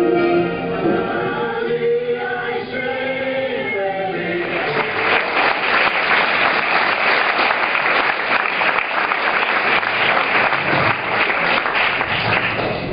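A choir singing the end of a song, which stops about four seconds in. Audience applause follows and carries on to the end.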